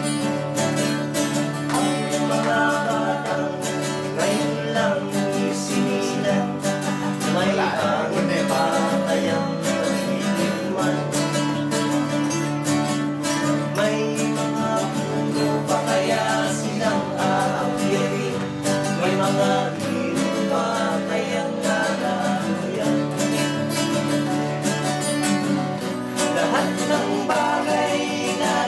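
Several acoustic guitars strummed together in a steady folk accompaniment, with men's voices singing along at times.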